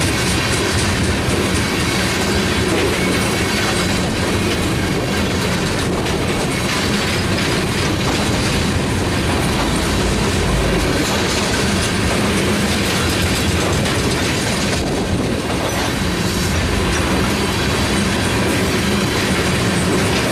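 Freight train of ethanol tank cars rolling past: a steady noise of steel wheels on the rails, with wheels clicking over rail joints now and then.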